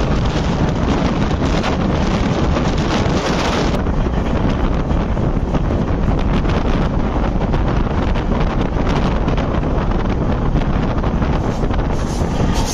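Wind buffeting the microphone at the open door of a moving passenger train, over the steady rumble and clatter of the coaches running on the track.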